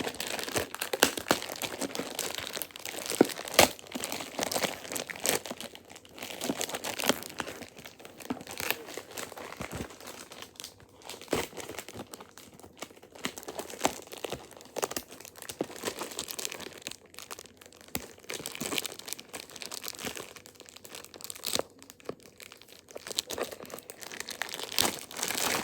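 Plastic film on a toy box crinkling and tearing as it is cut and pulled off, with a steady run of irregular crackles and sharp snaps.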